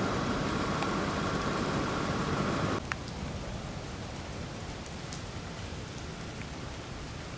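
Steady noise of rain falling, louder for the first three seconds, then dropping suddenly to a softer hiss.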